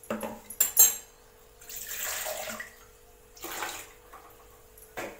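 Steel vessels clinking sharply together, then water poured from a steel tumbler into a steel cooking pot in two pours, with a light knock of metal near the end.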